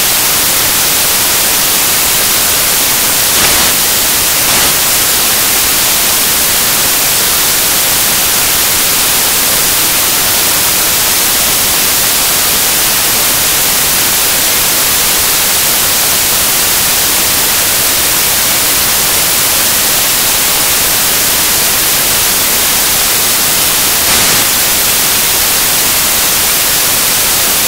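Loud, steady static hiss like white noise, brightest in the high range, with no other sound standing out.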